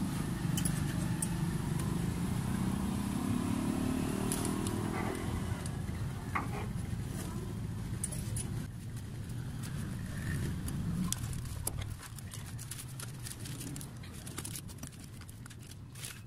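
A motor vehicle engine running, its pitch rising over the first few seconds and then fading away, with a few light metallic clicks and rattles from door lock rods and clips being handled.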